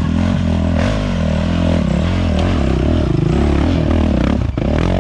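Kawasaki dirt bike engine revving up and down unevenly under heavy load as it climbs a steep trail.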